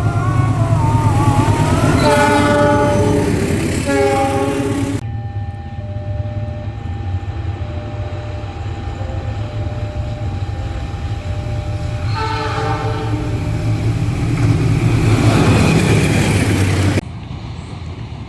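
Diesel locomotive's S35 air horn sounding a multi-note chord in several blasts, the loudest about two seconds in and again near twelve seconds, over the steady rumble of the locomotive and its wheels on the rails. The train noise swells as it passes, then cuts off abruptly near the end.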